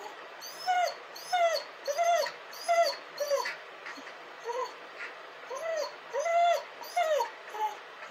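A dog whining: a run of about ten short, high whimpers, each rising and then falling in pitch, with a brief lull around the middle.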